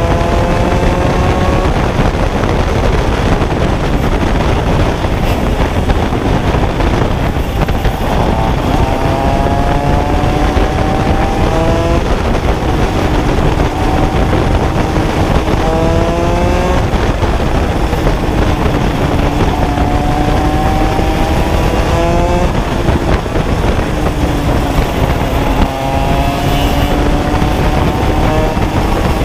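Shifter kart's stock motocross Honda two-stroke engine running at racing speed, its pitch climbing again and again as it accelerates and dropping between the climbs.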